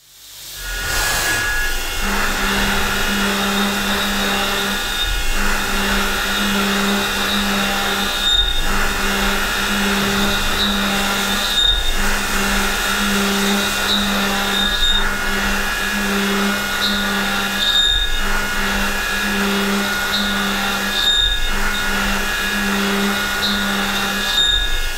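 High Feed 2 indexable-insert milling cutter pocketing SS2244 alloy steel at high feed, a steady cutting noise with a low hum and a high whine. The hum breaks off briefly about every three seconds.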